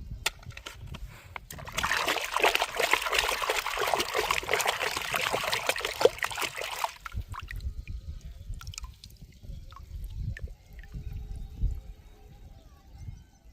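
Water pouring and splashing over toy cars being washed, strongest for about five seconds, then fainter with scattered drips and small knocks.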